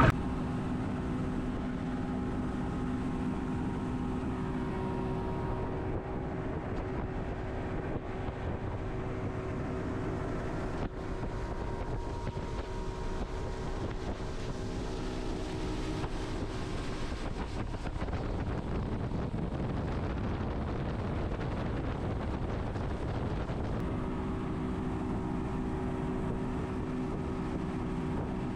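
Boat's outboard motor running at a steady speed while the boat travels, its hum weaker through the middle stretch and stronger again near the end, with wind rushing over the microphone.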